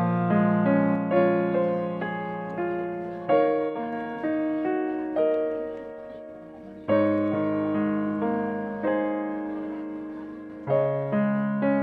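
Background piano music: slow chords and melody notes, each struck and left to fade.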